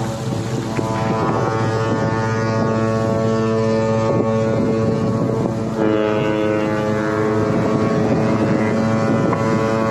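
Ship's horn sounding one long, steady blast of several tones at once, its set of tones shifting about six seconds in, with wind on the microphone.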